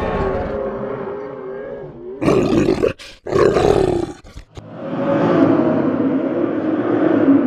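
Demon sound effect: a wavering, pitched growl, then two loud, harsh roars about a second apart, then a low growl building up again and holding.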